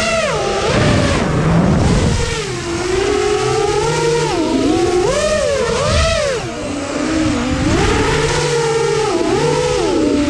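Motors and propellers of a 7-inch FPV quadcopter whining, the pitch swooping up and down again and again as the throttle changes.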